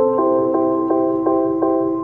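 Instrumental background music: sustained chords struck again about three times a second, changing chord shortly after the start.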